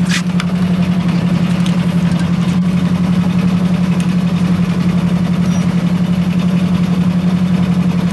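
A yacht's engine running steadily at low speed, a constant pulsing hum.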